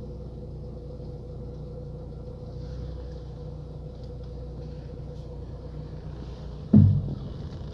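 Lada Priora idling steadily while the steering is turned, with one loud metallic knock from the right front suspension near the end, ringing like a hammer on an anvil. The owner suspects the coil spring is slipping off the strut's top support bearing or spring cup.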